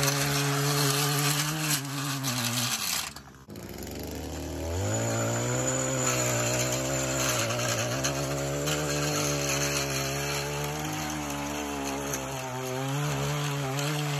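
Gas-powered stick blade edger running at full throttle, its blade cutting the turf along a concrete sidewalk edge. The engine falls away briefly about three seconds in, then revs back up and runs steadily.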